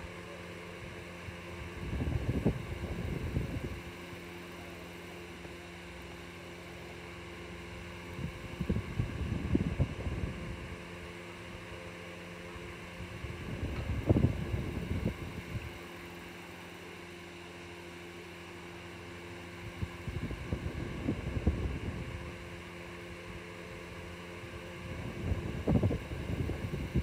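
Steady room hum with a low rumble of moving air on the microphone that swells and fades about every six seconds, five times.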